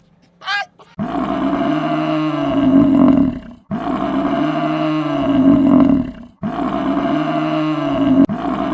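A large wild animal roaring: a loud, rough, drawn-out roar repeated three times back to back, each about three seconds long and alike in shape.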